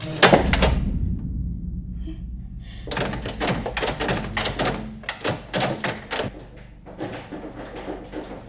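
A heavy thud right at the start with a low rumble trailing for about a second, then a rapid run of knocks and bangs for about three seconds, then fainter knocking.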